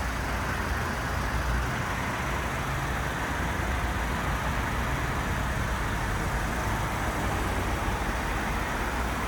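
2004 Lincoln Town Car's 4.6-litre V8 idling steadily, warming up after a cold start.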